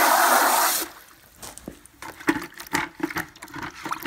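Garden hose spray nozzle hissing as it sprays water into a plastic bucket, shut off suddenly about a second in. Then small irregular splashes and knocks as the water is swirled and the bucket wiped out by hand.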